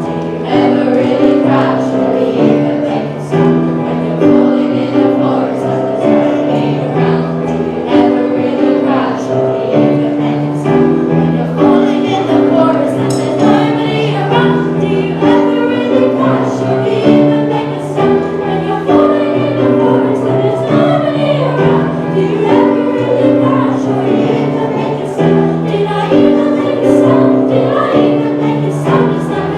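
A school choir singing over a musical accompaniment with a steady beat.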